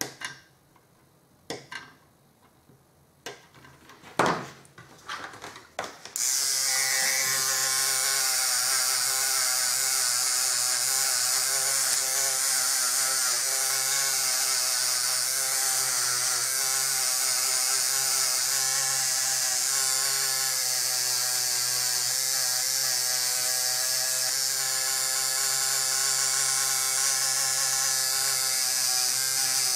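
A few clicks and knocks of parts and tools being handled. About six seconds in, a small electric motor starts and runs steadily, with a hum and a strong high hiss, its pitch wavering slightly.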